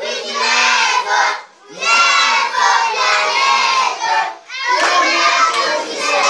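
Many young children's voices chanting together loudly, in phrases of about two to three seconds with short breaks between.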